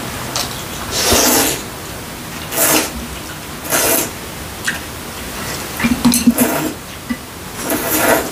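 Hot mugwort knife-cut noodles being slurped, in about five separate hissing slurps with the longest about a second in. Small clicks come between the slurps, a little after the middle.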